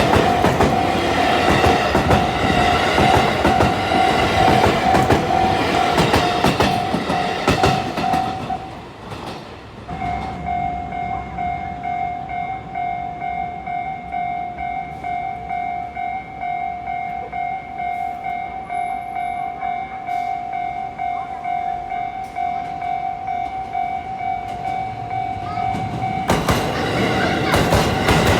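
Japanese level-crossing warning bell ringing in a steady rapid pulse while a train runs over the crossing. The train noise dies away about eight seconds in, the bell stops for about a second and starts again, and another train comes through near the end.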